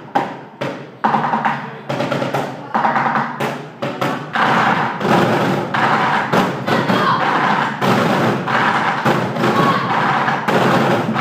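Children's percussion ensemble beating out a rhythm with sticks. The strikes are spaced out at first, then become dense and louder about four seconds in.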